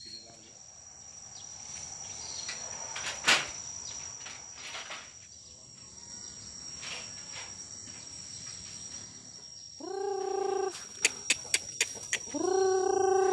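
Crickets chirring in a steady high drone, with two pitched calls of about a second each from chickens near the end, among a few sharp ticks.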